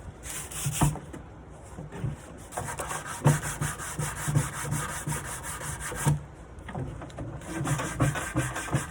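A nightstand being sanded by hand with sandpaper: quick back-and-forth scratchy strokes in runs, broken by short pauses. The sanding roughs up the old surface before priming.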